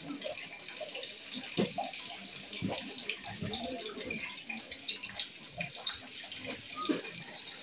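Spring water running steadily out of a rock grotto.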